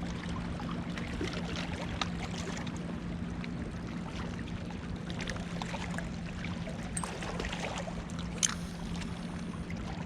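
Choppy lake water lapping and splashing over a steady low hum, with scattered small ticks and one sharp click about eight and a half seconds in.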